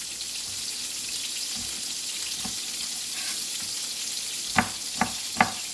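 Chicken pieces browning in hot oil, a steady sizzle. Near the end, three sharp knocks of a knife chopping garlic on a cutting board.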